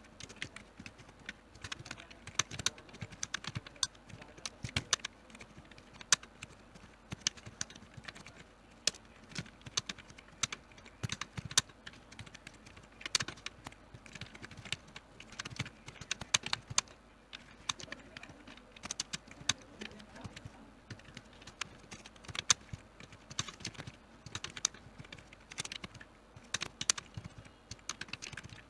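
Computer keyboard being typed on quickly and without pause: a dense, irregular run of key clicks, several a second.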